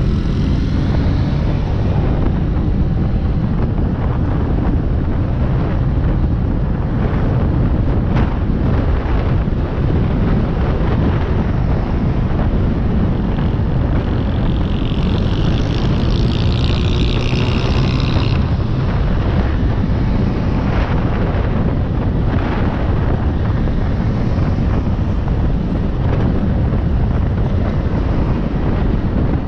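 Motorcycle engine running at cruising speed, heard from the rider's seat, with wind rushing over the microphone. About halfway through, a higher-pitched sound rises over it for a few seconds.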